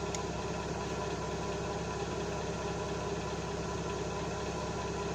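Steady, unchanging mechanical hum of a running motor, holding several fixed tones.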